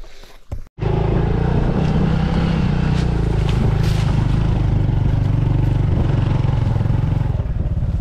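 Motorcycle engine running as the bike rides along a rough dirt path, heard up close from on the bike. It cuts in abruptly just under a second in, and its beat turns choppier near the end.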